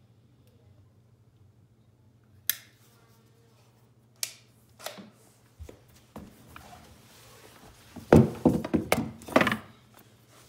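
Sharp single clicks and knocks as a caulking gun is handled, several seconds apart, then a louder close cluster of knocks and rustling about eight seconds in.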